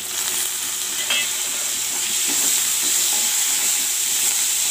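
Dried red chillies and curry leaves sizzling in hot oil in a steel kadai for a tempering. The sizzle jumps up sharply at the start and then holds steady and loud, with a metal ladle stirring and scraping a few times.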